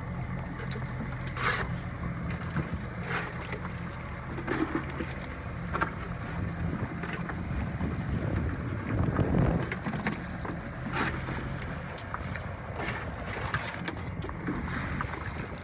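Fishing boat's engine running steadily at sea, with wind and water noise and scattered knocks; a louder rush comes about nine seconds in, and the engine hum drops away about twelve seconds in.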